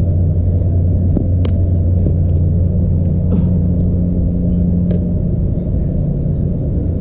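A softball bat striking a pitched softball with a sharp crack about a second and a half in, sending it up as a high fly ball, over a steady low hum; a few fainter ticks follow later.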